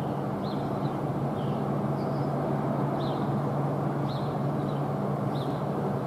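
Steady low hum and rumbling noise with no siren tone, while a small bird chirps short falling notes about once a second.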